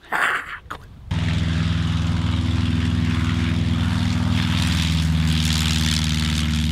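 Light aircraft piston engine and propeller running steadily at a constant note, starting abruptly about a second in.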